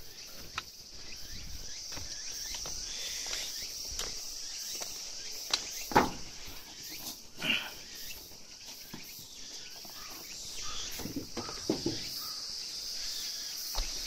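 Outdoor ambience: a steady high-pitched insect chorus, with scattered knocks and scuffs, the sharpest about six seconds in and a couple more later.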